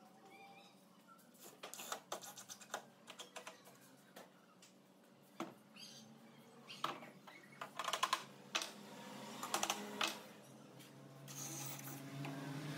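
Irregular light clicks and knocks of woodworking tools and wood pieces being handled, clustered most densely about eight to ten seconds in. Near the end a steady scraping, rubbing noise starts.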